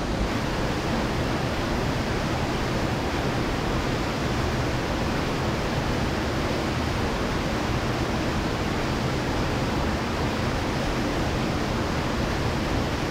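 River water rushing steadily, an even roar with no breaks.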